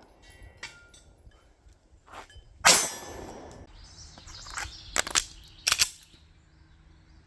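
A single loud pistol shot about two and a half seconds in, followed a couple of seconds later by four fainter sharp cracks in two quick pairs.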